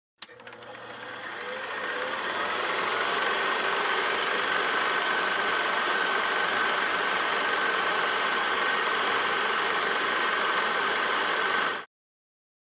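Radio emissions from Jupiter played as sound: a steady static hiss with a faint, constant whistle running through it. It fades in over about two seconds after a click and cuts off suddenly near the end.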